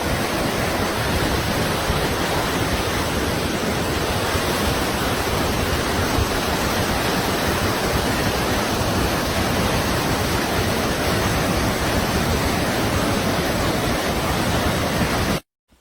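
Waterfall: a steady, dense rush of falling water that cuts off suddenly near the end.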